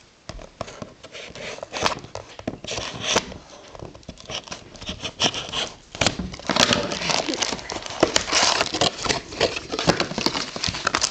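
Rustling, crinkling and scraping of a trading card box and its foil packs being handled and opened, with irregular clicks, getting busier about six seconds in.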